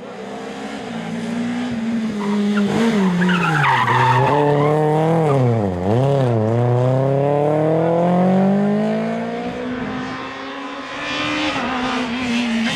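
Rally car engine dropping in pitch through downshifts as it brakes into a corner, then rising steadily as it accelerates out, with another gear change near the end. A short tyre squeal about three seconds in.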